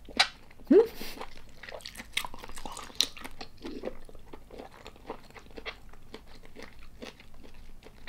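Close-miked chewing of soy-sauce-marinated tiger prawn: many small wet clicks and crunches of mouth noise, with a sharp click and a short rising mouth sound within the first second.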